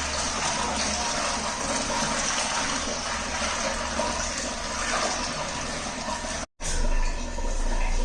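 Water gushing and splashing steadily, with the sound cutting out abruptly for a moment about six and a half seconds in.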